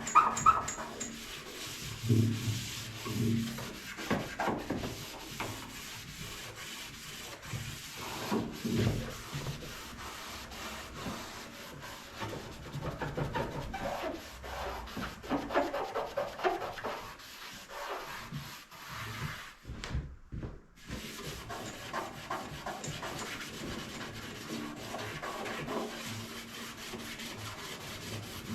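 Hand sanding or scuffing of a painted truck tailgate: uneven rubbing strokes with a short pause about two-thirds through. The paint is being dulled so that the bedliner coating will stick, since shiny paint must not be left.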